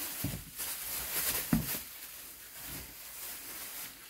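Clear plastic packaging rustling and crinkling as it is lifted out of a cardboard box, with a few low bumps from the handling.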